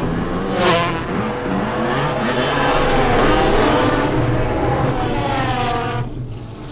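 A car's tyres squealing and skidding over its running engine, the pitch sliding up and down, then dropping away briefly near the end.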